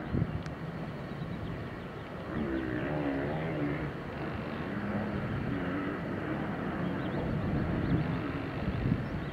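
Boeing 737-800's CFM56 jet engines at taxi power, a steady low rumble.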